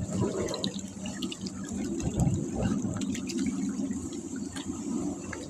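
Catfish splashing and churning at the water's surface: irregular small splashes and gurgles over a steady low hum.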